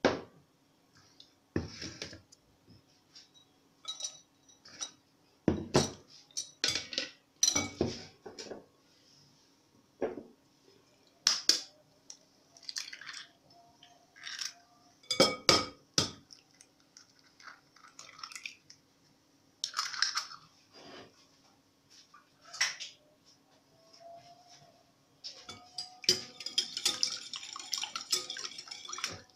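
Eggs being cracked on the rim of a glass bowl, with scattered sharp knocks and clinks of eggshell and glass. For the last few seconds a wire whisk beats the eggs in the glass bowl, a fast continuous rattle.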